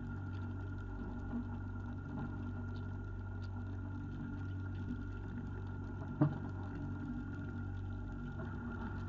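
Fishing boat's engine running with a steady low hum and a thin steady whine above it, with one sharp knock about six seconds in.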